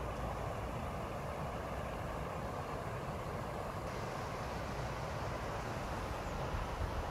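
Steady rush of river water spilling over a low rocky weir.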